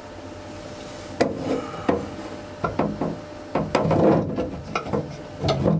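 A metal toilet ball tap (float valve) being handled and refitted into the cistern's inlet hole: irregular clunks, clicks and scraping of metal against the tank, starting about a second in.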